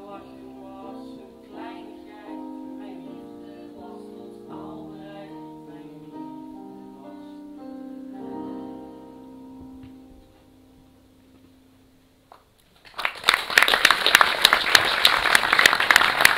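The closing bars of a song with piano accompaniment die away, and about thirteen seconds in an audience breaks into loud applause.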